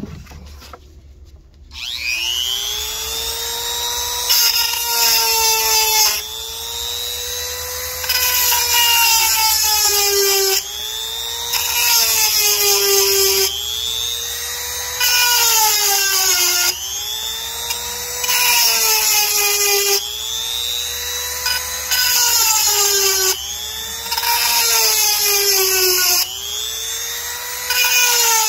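Handheld rotary chainsaw-chain sharpener with a 7/32-inch grinding stone spins up about two seconds in. It then grinds the chain's cutters one after another: about eight harsh grinding passes a few seconds apart over the motor's whine. The whine drops in pitch as the stone bears on each cutter and rises again between them.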